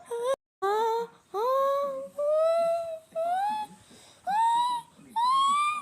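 A high-pitched voice making a string of about six drawn-out whining calls, each rising in pitch, with short gaps between them. A brief cut to total silence comes just before the second call.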